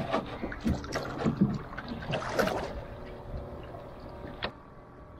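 Wooden paddle dipping and splashing beside a small wooden canoe, with water slapping and knocking at the hull, busiest over the first three seconds. One sharp knock about four and a half seconds in.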